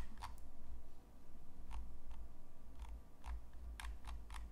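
A few scattered sharp clicks from a computer mouse, irregularly spaced and bunched near the end, over a low steady hum.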